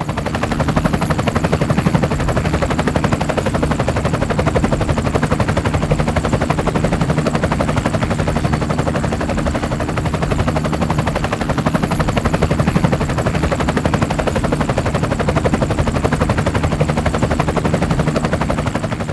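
An engine running steadily with a rapid, even pulsing beat.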